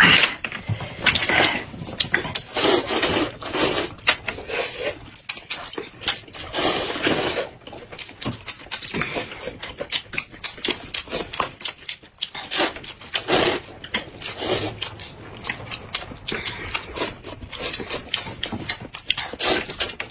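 Loud slurping of long sweet-potato-starch noodles in hot and sour broth, with chewing between slurps, some slurps drawn out for about a second. Many short clicks are mixed in.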